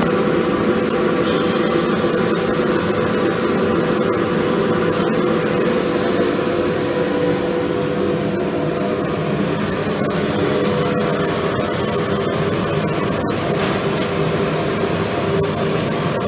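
3 kW fiber laser cutting machine running: a steady, loud mechanical noise with a constant hum and hiss that holds evenly throughout.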